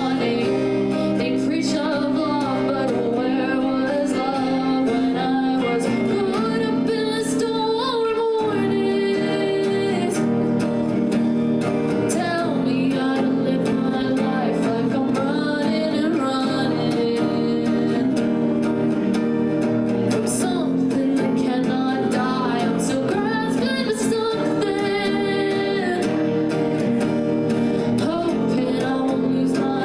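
A song played by a duo: a woman singing over guitar accompaniment.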